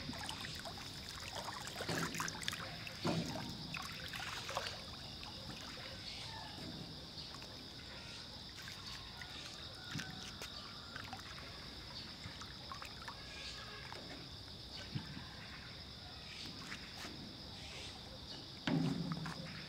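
Water lapping and trickling against the hull of a small rocking boat, with a few low thumps as feet shift weight on the boat's floor, the loudest near the end. A steady high hum sits underneath.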